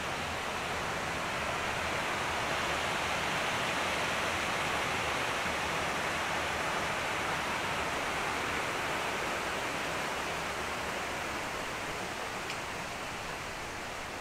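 Steady rushing of flowing water, growing a little louder a few seconds in and easing off toward the end.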